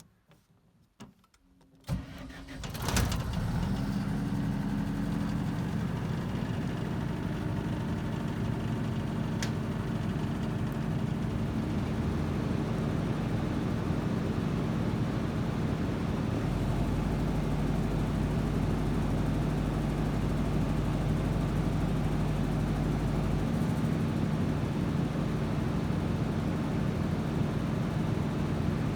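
A few clicks, then the Perkins diesel engine of a 110 kVA Bruno generator set starts about three seconds in and settles into steady running. Its note changes a little about halfway through.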